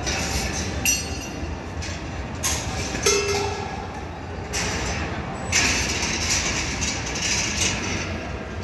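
Balls rolling and clattering along the metal wire tracks of the DinDon giant ball-run machine: a steady rolling rumble with scattered clinks and knocks, and a short ringing note about three seconds in.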